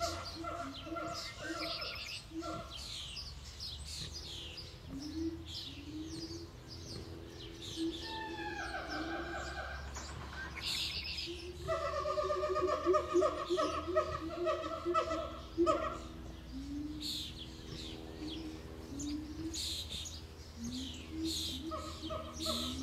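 Several birds calling at once: quick high chirps throughout, over runs of a lower, pulsing call that repeat every few seconds and are loudest about halfway through. A low steady hum sits underneath.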